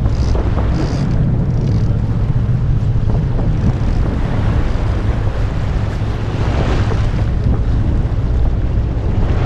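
Wind buffeting the microphone on an offshore fishing boat, over a steady low rumble from the boat and the sea.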